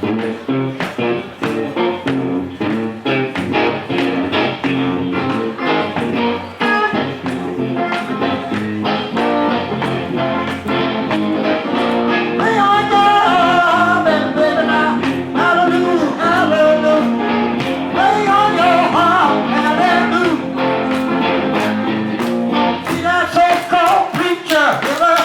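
Live blues guitar playing an instrumental intro, a rhythmic accompaniment with sharp percussive strokes on the beat keeping time in place of bass and drums. About twelve seconds in, a higher lead line of bending, wavering notes comes in over it.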